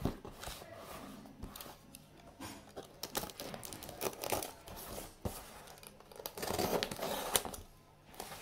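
Box cutter slicing and tearing the packing tape off a cardboard parcel, with irregular scrapes, clicks and crinkling of the taped cardboard. A longer, louder stretch of tape tearing comes about six to seven seconds in.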